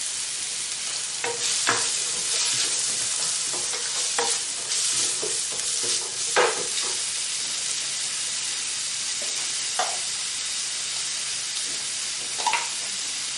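Onions frying in olive oil in a pan with a steady sizzle, stirred with a utensil that scrapes and knocks against the pan about six times.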